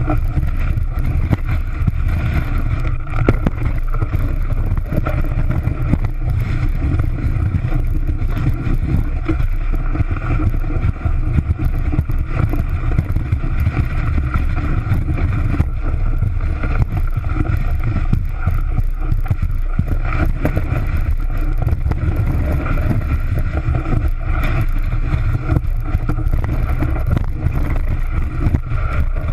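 Snowboard sliding and carving over packed, chopped-up snow, picked up by a camera mounted on the board: a steady low rumble of the base and edges scraping and chattering on the snow, with many small knocks over the bumps and some wind on the microphone.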